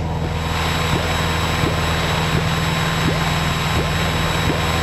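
Steady drone of a Piper PA-28's single piston engine and propeller, heard from inside the cockpit in flight.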